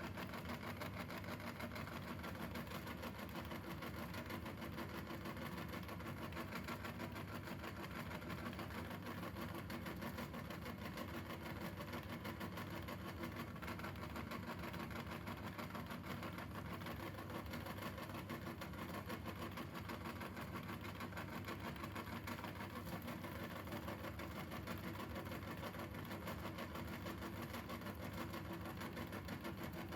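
Electric meat grinder running steadily with an even motor hum as it grinds Orbeez water beads.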